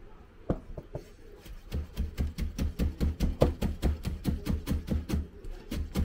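Kitchen knife slicing ginger on a plastic cutting board: a few separate cuts, then from about a second and a half in a fast, even run of chops, about four or five a second.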